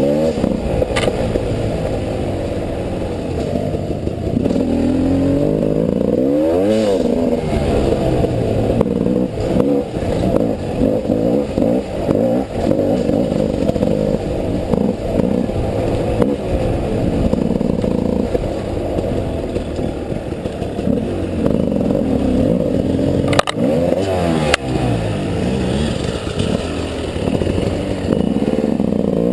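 300cc two-stroke enduro motorcycle engine revving up and down again and again while riding off-road, with clatter and a few sharp knocks from the bike over rough ground.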